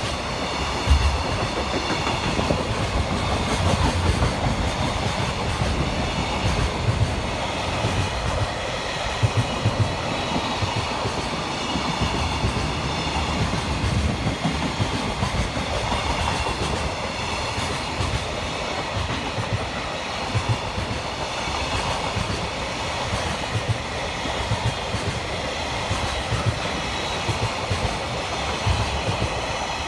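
A long freight train of container flat wagons rolling past at speed: a steady rumble of steel wheels on rail with irregular clickety-clack as the wheels cross rail joints.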